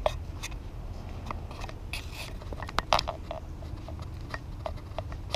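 Footsteps crunching on a gritty paved road, a run of short irregular crunches and clicks, with a steady low rumble underneath.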